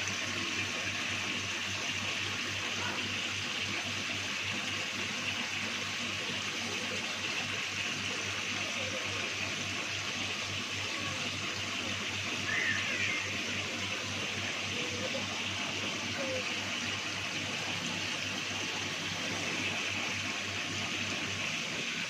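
Steady rush of water pouring into fish-rearing tanks of a recirculating aquaculture system, with a low steady hum beneath.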